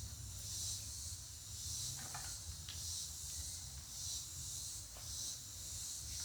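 Insects calling in a steady evening chorus of raspy, hissing pulses, about one a second, over a low steady hum.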